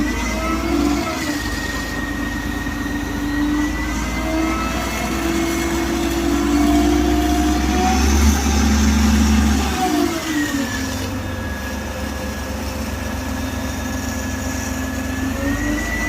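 A motor running steadily with a hum, its pitch rising a little about four seconds in, dropping again about ten seconds in, and climbing once more near the end.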